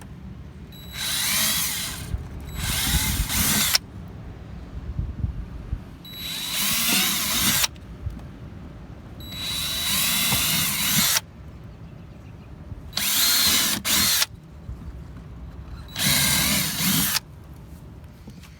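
Power drill running in six short bursts of one to two seconds each, its whine rising as it spins up, drilling holes through a car's plastic bumper and wheel well.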